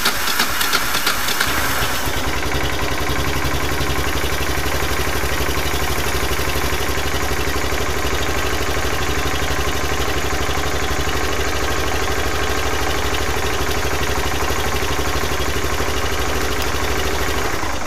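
Kawasaki Bayou 300 ATV's single-cylinder four-stroke engine spun by its electric starter, catching within about two seconds and then idling steadily. It starts on the button with a freshly filled and charged battery, no pull start needed.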